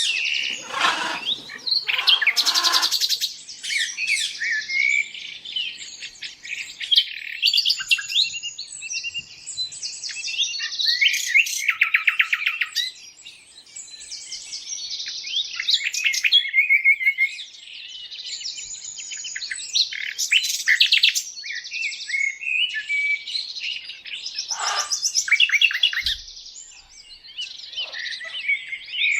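Many small birds chirping and trilling together without a break, high-pitched overlapping calls and rapid trills, with a few lower, harsher calls in the first few seconds.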